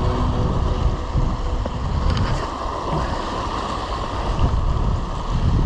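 Wind buffeting the microphone over waves washing against the concrete breakwater blocks, a steady rumbling hiss.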